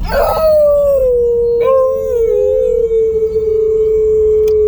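A person imitating a wolf with one long howl that sinks slowly in pitch. A second howling voice briefly overlaps it near the middle.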